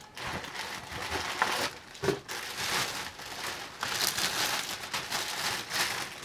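Clear plastic bag crinkling and rustling as a bicycle helmet wrapped in it is handled and lifted out of its box, in a long run of irregular crackles.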